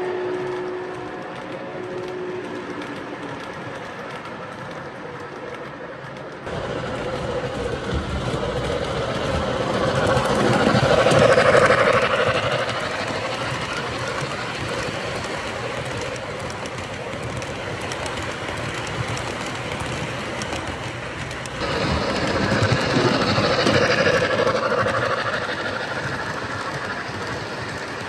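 Model train of the Milwaukee Road F7 Hiawatha running on the layout track: steady wheel rumble and clatter that swells twice as the streamlined passenger cars pass close by, with a whistle tone dying away in the first couple of seconds.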